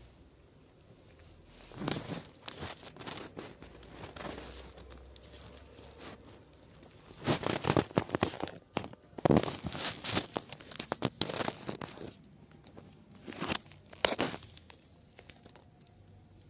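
Rustling and crinkling right at the microphone, in irregular bursts with sharp crackles. It starts about two seconds in, is loudest in the middle and dies away a couple of seconds before the end.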